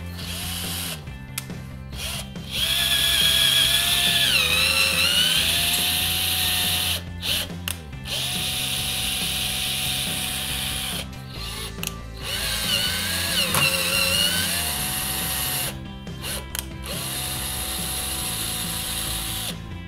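Cordless drill running in four bursts of a few seconds each, its motor whine sagging in pitch twice as the bit bites into a steel profile tube. Background music plays underneath.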